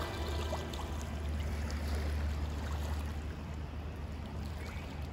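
Tour boat's engine running with a steady low drone, under an even rush of water.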